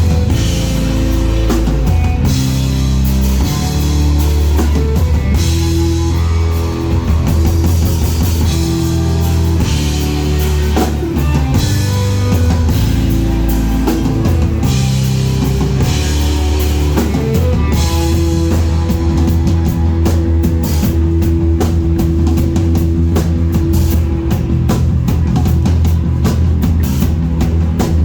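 Rock band playing live: drum kit, distorted electric guitar and bass, loud and continuous.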